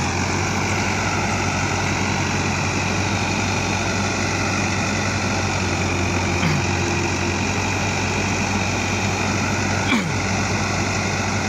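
Rice combine harvester running steadily as it cuts and threshes standing paddy: an even engine drone over a broad whir of the machinery. A single short knock comes about ten seconds in.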